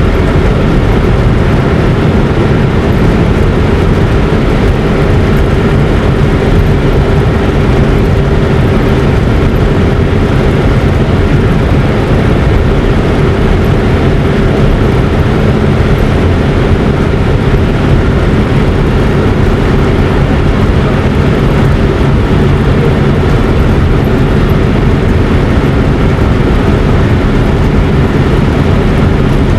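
Loud, steady engine noise with a constant low hum, unchanging throughout.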